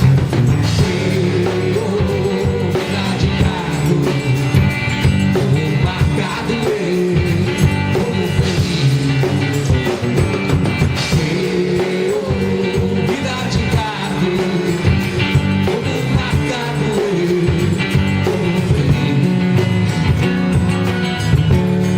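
A live band playing a Brazilian song, with a singer's voice over the band.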